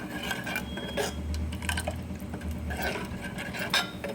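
Water poured from a glass into a cooking pot, with scattered clinks and knocks of utensils against the pot.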